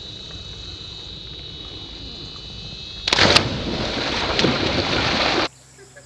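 A person dropping off a rope swing and splashing into a river: a sudden loud splash about three seconds in, followed by a couple of seconds of rushing water. Wind rumbles on the microphone throughout.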